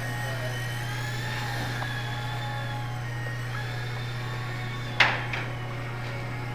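Whine of a Blade mSR micro helicopter's small electric motors, thin high tones wavering gently in pitch as it hovers, over a steady low hum. A single sharp knock about five seconds in.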